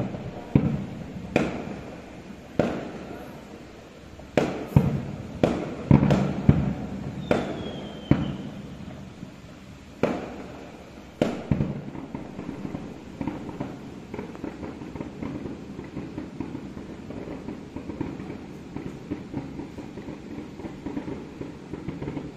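Aerial firework shells bursting in a string of sharp bangs, about a dozen in the first eleven seconds, each trailing off in a low rumble. After that the big bangs stop and a softer, continuous crackle of smaller bursts goes on.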